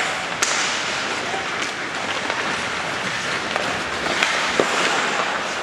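Ice hockey play: skate blades scraping across the ice in a steady hiss, with sharp clacks of sticks and puck about half a second in and twice near the end.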